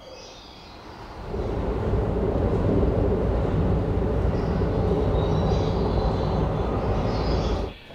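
Keikyu Line train passing on the elevated track, a loud steady rumble that builds about a second in and cuts off abruptly near the end.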